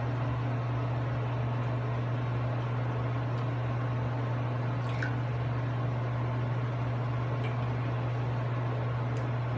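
A steady low electric hum under an even rush of air-like noise, holding constant throughout, with a few faint ticks.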